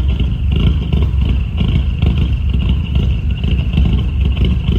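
VW Golf GTI Mk5's 2.0-litre turbocharged four-cylinder engine running, with a steady but uneven low rumble; it still has the misfire on cylinders 1, 2 and 3 that new coil packs and spark plugs have not cured.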